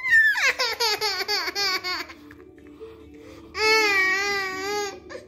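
Young children's wordless voices: a fast run of short falling cries, then one long wailing cry from about three and a half seconds in. Faint background music plays underneath.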